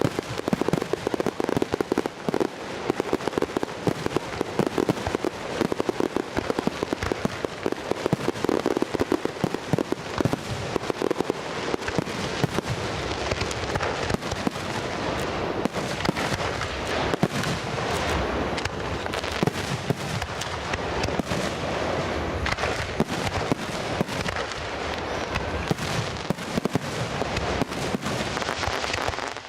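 Fireworks display: a dense, unbroken barrage of many rapid bangs and crackles.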